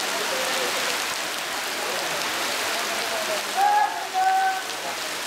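Very heavy rain pouring down in a steady hiss. About three and a half seconds in, two short, loud pitched hoots sound over it.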